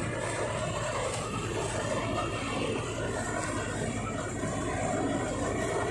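John Deere 5045D 45 hp tractor running a tractor-mounted Panesar mini combine harvester at work: a steady engine drone mixed with the even rushing noise of the threshing machinery.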